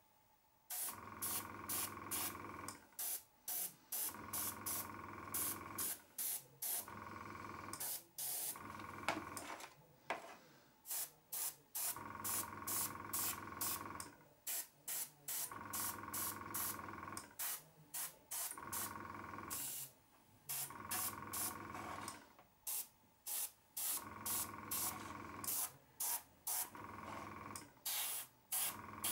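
Airbrush spraying lexan paint in many short bursts of hiss, each a second or so long, as the trigger is pulled back and let go to lay a light first dusting coat on an RC buggy body. A small air compressor hums steadily underneath.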